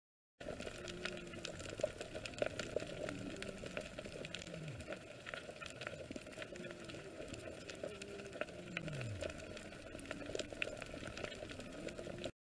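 Underwater ambience from a diving camera: a faint, steady crackle of many small clicks, with two low tones that fall in pitch, about four and a half and nine seconds in.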